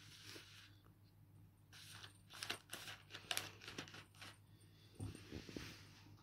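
A cat at a packet of cat treats: a run of sharp crackling clicks, loudest around the middle, then a few soft thumps near the end.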